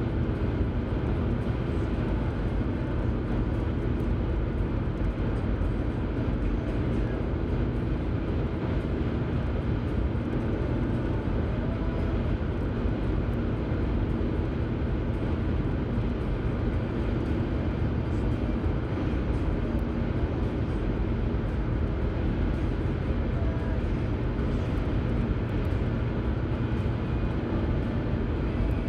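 Steady road and engine noise heard inside a car cruising at highway speed, a low, even rumble with no change.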